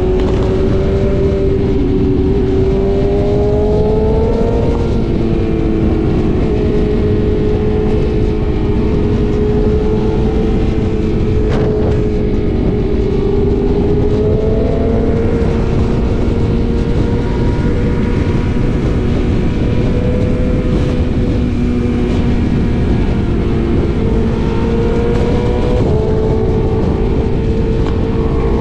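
BMW S1000RR's inline-four engine pulling at highway speed, its note slowly rising as the bike speeds up, under heavy wind rushing over the helmet microphone.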